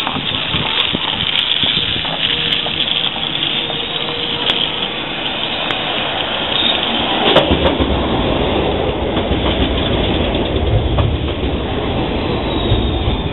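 Hermelijn low-floor tram running along street track towards the listener and passing close by. The rumble of its wheels on the rails builds from about halfway through, with scattered clicks over the street noise.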